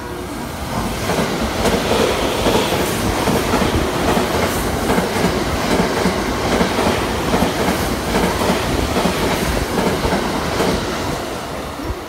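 Limited express electric train of coupled 681 and 683 series cars passing through a station at speed without stopping: the wheels and running gear rumble and clatter past, loud and steady. It grows louder about a second in and eases off near the end as the last car goes by.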